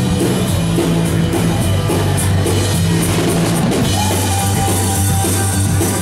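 Rock band playing live: a drum kit with cymbal hits over steady bass notes, with a held higher note coming in about four seconds in.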